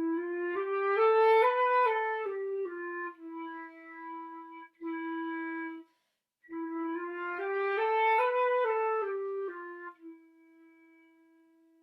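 A flute playing a slurred phrase twice: the notes climb by step from a low E and come back down again, starting soft, growing louder toward the top and softening on the way down (a crescendo then a diminuendo). Each phrase settles on long held E's, and the last one fades softly near the end.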